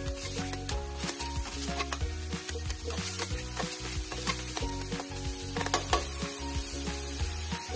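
Minced pork sizzling in a wok with soy sauce and fish sauce, while a metal spatula stirs and scrapes against the pan in quick repeated strokes. Background music plays underneath.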